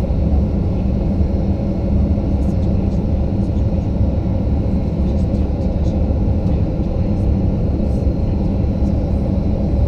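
Cabin noise of a Boeing 737-900 standing still with its CFM56-7B jet engines idling: a steady low rumble with a faint high whine, heard from inside the cabin.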